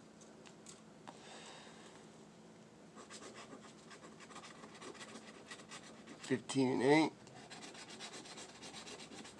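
Scratching the coating off a paper lottery scratch-off ticket: a fast, continuous run of rubbing strokes. About two-thirds through there is a brief, louder voice sound with wavering pitch.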